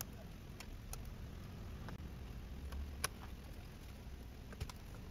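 Scattered small clicks and taps of a screwdriver and parts while an Intel NUC mini PC is taken apart by hand, the sharpest click about three seconds in, over a low steady hum.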